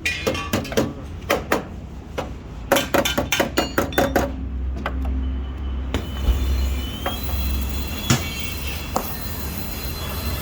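Quick runs of sharp blows on metal, about three or four a second, as in hammering car body panels. About six seconds in they give way to a steady high squeal over a rough rumble.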